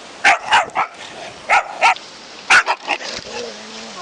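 A dog barking: about eight short, sharp barks in quick clusters of two or three.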